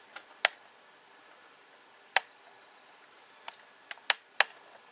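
Scattered sharp clicks and taps from a small reindeer antler block being handled against a work mat, about seven in all, with the loudest about half a second in, a little after two seconds, and two close together near the end.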